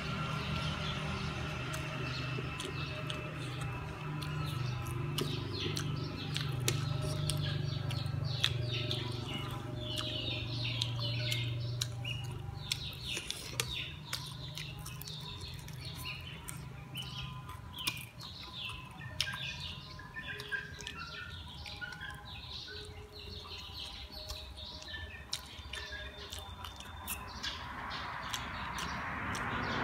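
Small birds chirping in quick, repeated calls, over close chewing of chicken wings with small wet clicks. A low steady hum runs under the first half and fades out.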